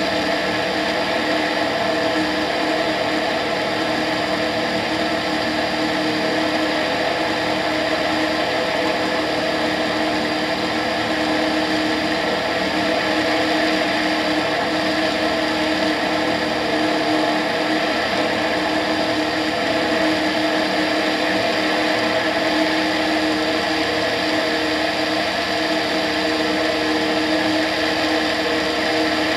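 Tetras ultralight aircraft's engine and propeller running at steady cruise power: a constant, even drone with no change in pitch, heard from a camera mounted outside on the airframe.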